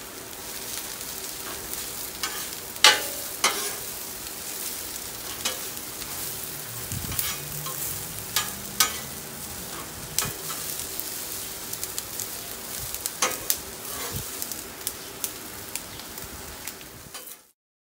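Sliced bell peppers and onions sizzling on a hot Blackstone steel griddle, with a metal spatula clacking and scraping on the griddle top as they are stirred. The sound cuts off suddenly near the end.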